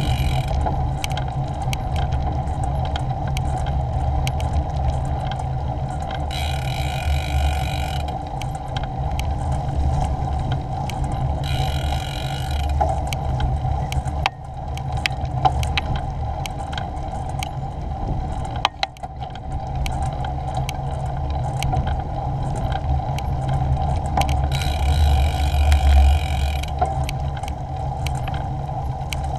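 Riding a bicycle on a rough path heard from a GoPro mounted on the rider or bike: steady wind rumble on the microphone and tyre noise, with frequent rattles and clicks from the bike. Three times a high buzzing comes in for a second or two.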